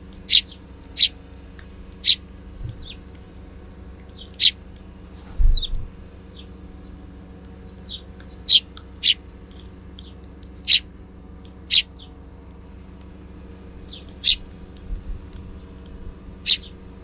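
Sparrows giving single sharp chirps, about a dozen spaced irregularly, over a steady low hum. A dull thump about five seconds in.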